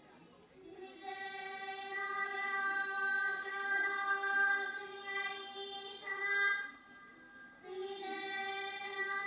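One voice singing a slow chant in long, steady held notes. It pauses briefly about seven seconds in, then carries on.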